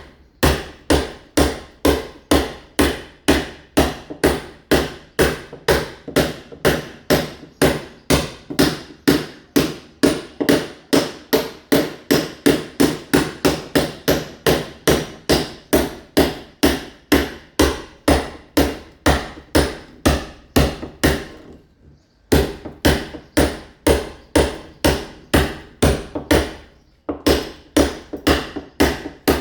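Mason's hammer striking a masonry wall in steady, rapid blows, about three a second, chipping the wall surface to key it for ceramic tile. The hammering breaks off briefly about twenty-one seconds in and again near twenty-seven seconds.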